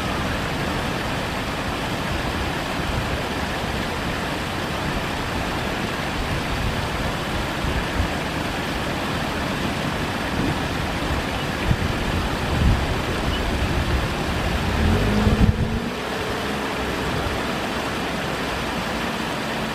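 Steady rushing outdoor background noise. About three quarters of the way through, a louder low rumble with a faint hum swells for a couple of seconds and fades.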